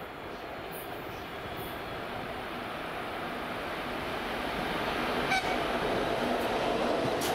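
TEP70 diesel passenger locomotive approaching with its train, its running noise growing steadily louder as it nears. A single sharp click sounds about five seconds in.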